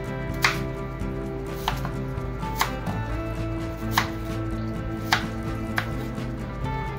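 Chef's knife slicing a carrot into thin strips on a bamboo cutting board: six sharp knocks of the blade against the board, unevenly spaced about once a second.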